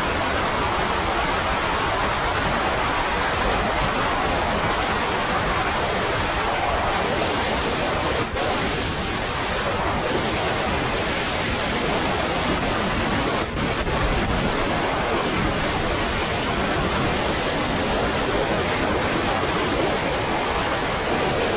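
Freefall wind rushing over the camera microphone, a steady loud roar with two brief dips.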